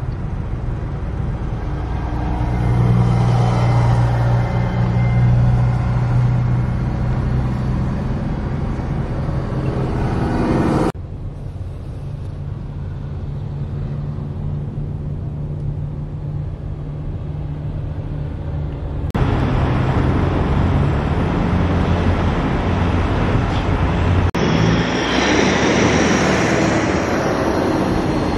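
Diesel engines of several semi trucks running as they roll slowly past, a steady low drone with road noise. The sound jumps abruptly in level three times, at about 11, 19 and 24 seconds in.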